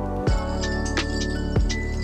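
Background music: an electronic track with a steady beat and sustained synth chords.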